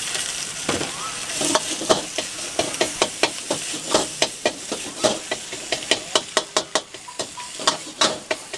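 Metal ladle clanking and scraping against a steel wok in quick strokes, about three or four a second, as greens are stir-fried. Oil sizzles steadily underneath.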